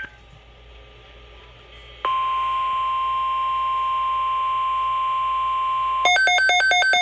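NOAA Weather Radio's 1050 Hz warning alarm tone, a single steady tone that starts abruptly about two seconds in after faint radio hiss and marks an incoming weather alert. About six seconds in, a rapid two-pitch beeping cuts in over it at about five beeps a second.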